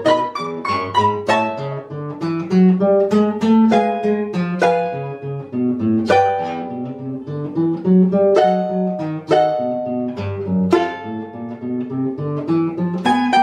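A mandolin and a classical guitar playing a duet, plucked note after note, with the guitar's bass notes and chords under the melody.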